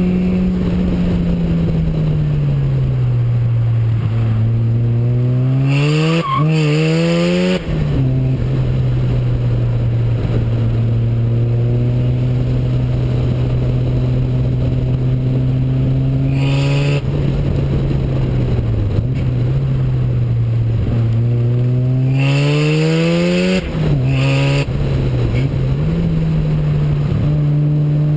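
Turbocharged Mazda 13B rotary engine under hard track driving, heard from a camera on the side of the car with wind noise. Its tone holds steady for long stretches and twice climbs under acceleration before dropping suddenly, with short bursts of high hissing noise.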